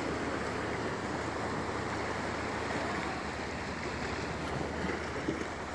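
Steady wash of small waves at a sandy beach shore, an even, unbroken noise.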